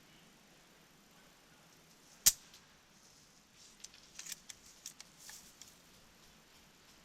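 An airsoft sniper rifle fires once with a single sharp crack about two seconds in. A scattered run of small clicks and scuffs follows.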